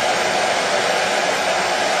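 Hair dryer running continuously at a constant setting: a steady, even rushing noise with no change in pitch or loudness.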